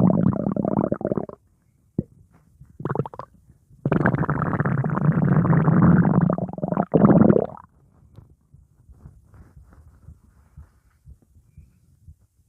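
Stomach growling sound effect. A loud gurgle stops about a second and a half in. A short gurgle comes near three seconds, then a long gurgle of nearly four seconds, and faint scattered gurgles follow.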